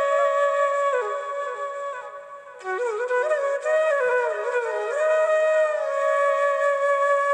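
Background music: a flute melody of long held notes stepping up and down, dropping away briefly about two seconds in before coming back.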